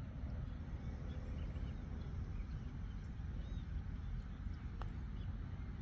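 Outdoor ambience on a golf course: an unsteady low rumble with faint bird chirps scattered over it, and a single click about five seconds in.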